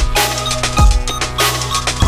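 Background electronic music with a heavy kick-drum beat about every half-second and sustained synth tones.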